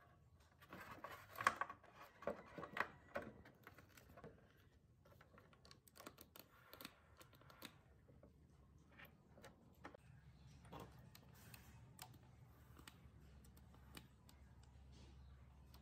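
Faint clicks and light ticking as a hot-staple plastic repair tool and its metal staples are handled and pressed into a cracked plastic panel. The clicks are busiest about one to three seconds in, then sparse, with a faint low hum coming up about ten seconds in.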